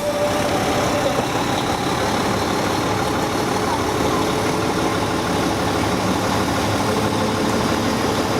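Fire engine idling steadily.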